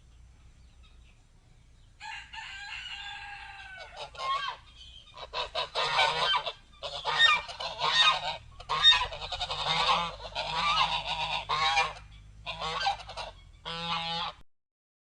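Large birds calling with loud, repeated honking calls, several overlapping, for about twelve seconds, then stopping abruptly.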